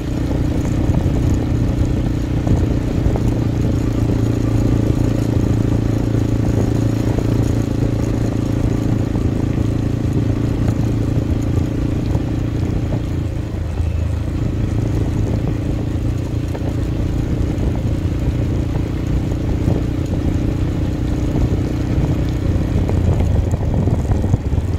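Motorcycle engine running steadily while riding along, heard from on the bike. Its note dips briefly about halfway through, then picks up again.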